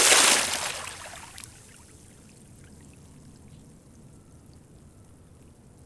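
A loud rush of pouring water that fades away over about a second and a half, leaving a faint low trickle.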